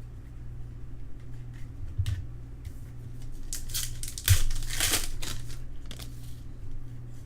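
Foil trading card pack wrapper crinkling and being torn open, with a rustling tear about halfway through that is the loudest sound, and light handling clicks around it. A steady low electrical hum runs underneath.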